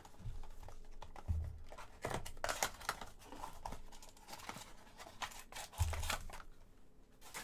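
Clear plastic shrink wrap being torn and crinkled off a small sealed trading card box by hand, in irregular crackles, with a couple of soft bumps as the box is handled.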